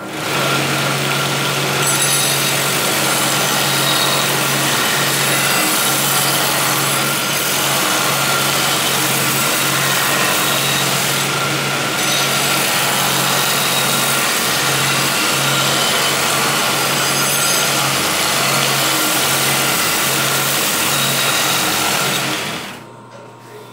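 Homemade belt sander driven by a sewing-machine motor starts up and runs with a knife blade pressed against the abrasive belt: a steady motor hum under loud grinding hiss as scale is cleaned off a freshly hardened blade. The sander stops near the end.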